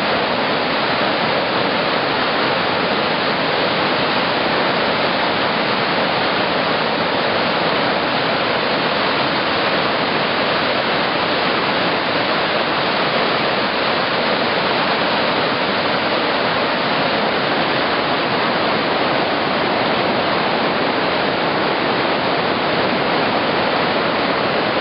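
River in flood pouring over a waterfall that is swamped into big rapids: a loud, steady rush of water.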